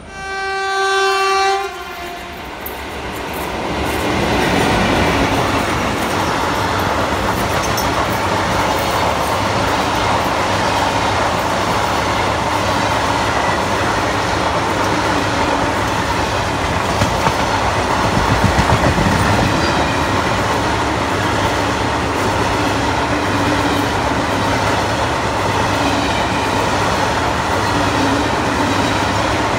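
A locomotive horn sounds one short steady blast. Then a passenger train of blue sleeper-class coaches runs past close by, its wheels rumbling and clattering over the rails.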